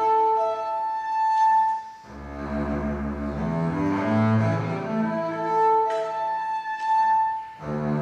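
Cello and double bass playing an exposed solo passage in classical concert music: long held high notes answered by lower bowed notes, with a very deep bass note about two seconds in.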